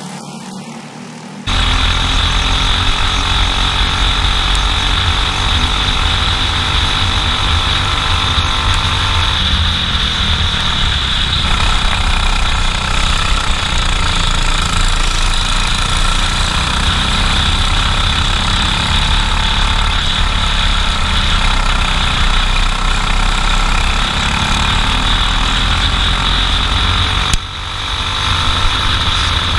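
Briggs & Stratton 206 single-cylinder four-stroke kart engine at racing speed, heard close up from a camera mounted on the kart, its pitch rising and falling through the corners. It cuts in suddenly about a second and a half in, after a quieter trackside sound, and dips briefly near the end.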